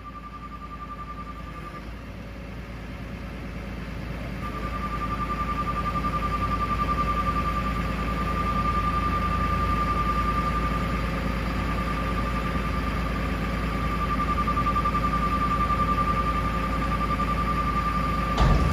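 2010 Ford F750's Cummins ISB 6.7L turbo diesel running steadily, with a constant whine from the hydraulics while the chipper dump body is lowered. The whine drops out briefly and returns, and a knock comes near the end as the body comes down onto the frame.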